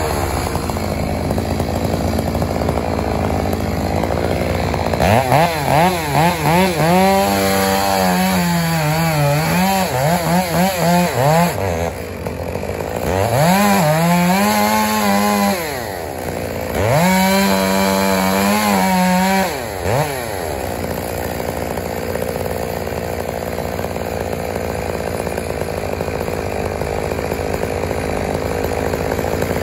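Land-clearing machinery working wood over a steady mechanical din: a high-revving engine whose pitch dips and recovers again and again under load, in three spells between about five and twenty seconds in.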